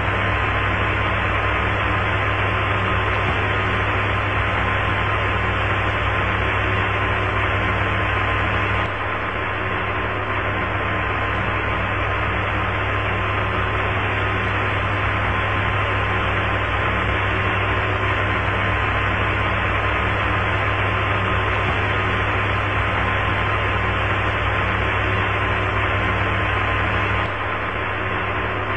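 Steady hiss of an open radio channel with no voices on it, with a thin steady tone and a low hum underneath; the hiss drops slightly in level about nine seconds in and again near the end.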